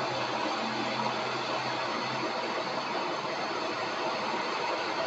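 Hand torch flame hissing steadily while it heats a small metal terminal to melt solder into it.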